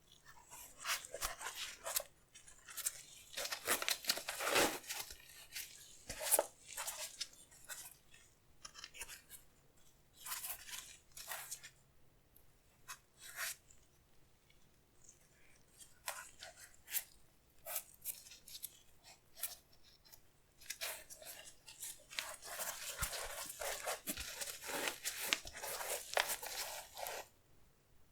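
Sneaker packaging being handled and torn: crinkling, rustling and tearing in spells, with short crackles between and a longer stretch of rustling near the end.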